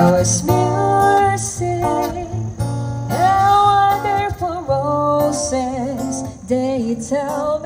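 A song sung to strummed acoustic guitar, with a long held note about three seconds in.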